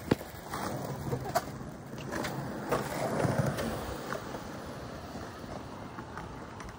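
Skateboard wheels rolling over concrete, a steady low rumble, with a sharp click at the start and another about a second and a half in.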